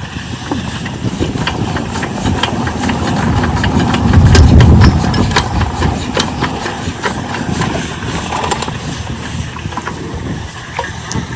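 12 HP diesel water-pump engine struggling as it is started: it chugs and knocks, swelling to its loudest about four seconds in, then falling back and running unevenly. This fits the hard starting of the engine, which seemed to be dying just before.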